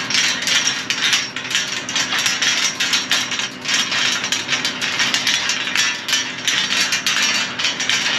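Rapid, continuous metallic clicking and rattling as a stiff threaded fitting on a windmill pump's pipe is worked around with hand tools.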